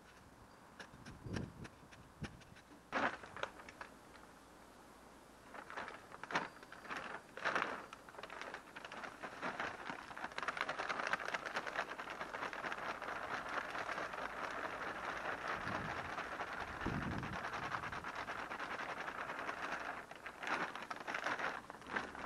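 Compost and fertilizer poured from a bag into a freshly dug planting hole: a steady rustling hiss of loose material falling for about ten seconds. Before it and near the end come scattered crinkles and scrapes of handling the bags.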